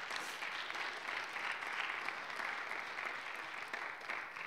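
Congregation applauding, the clapping fading away near the end.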